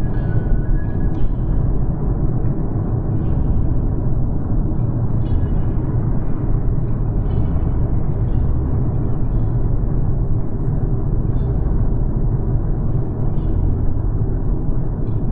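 Road noise inside a moving car's cabin: a steady low rumble of tyres and engine while driving along the street.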